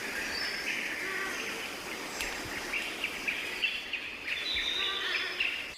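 Many small birds calling and chirping together: a busy chorus of short, high chirps and trills with no single dominant singer.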